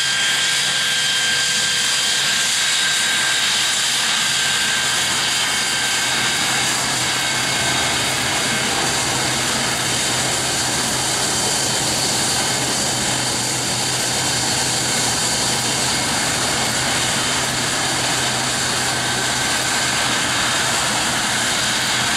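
Saab 37 Viggen's Volvo RM8 turbofan running at taxi power as the jet rolls along the runway: a steady jet rush and hiss with high whining tones that fade out over the first few seconds.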